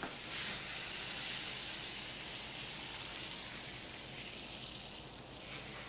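Hot butter and white wine sauce sizzling in a skillet as it is poured over shrimp and rice on a plate; a steady hiss that eases a little near the end.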